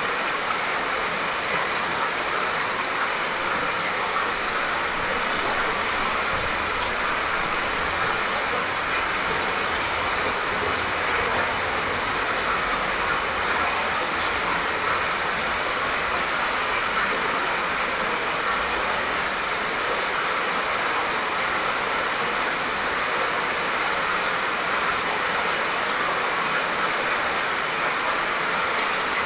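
Light, soft rain falling steadily, an even hiss that never lets up.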